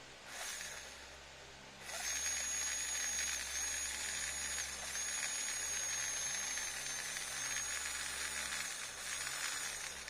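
Small DC gear motor, built from an old RC car's motor and gears, starting about two seconds in and running steadily with a high-pitched whine over a whir, the whine wavering slightly in pitch.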